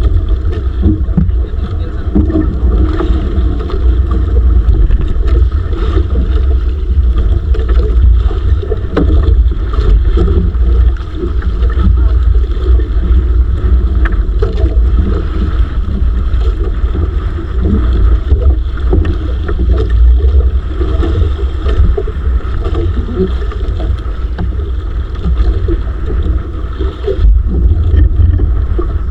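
Steady low rumble aboard a small fishing outrigger boat at sea, with wind buffeting the microphone.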